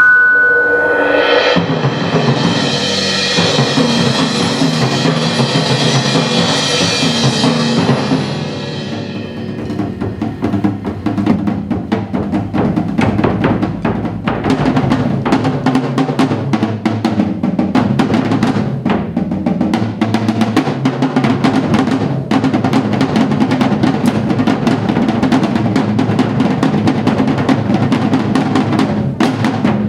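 A percussion quartet playing. A loud, sustained ringing wash fills the first eight seconds or so, then gives way to fast, dense drum strokes with bass drum and snare in a driving rhythm.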